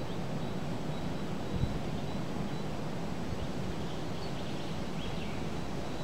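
Wind blowing steadily through riverside trees and reeds, an even rushing hiss, with a brief low gust buffeting the microphone about a second and a half in.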